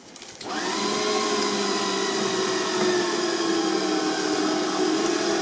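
Electric winch on an off-road prototype starts about half a second in and whines steadily under load, pulling the vehicle up a steep bank; the pitch sags slightly as the pull goes on.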